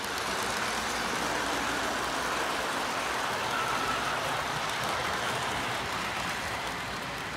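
O-gauge model freight train rolling along the layout's track: a steady rumble of wheels on rail that swells as the train comes out of the tunnel and passes close by, then eases off.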